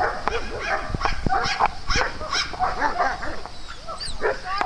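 Several dogs barking and yipping at play, short calls overlapping one another without a break.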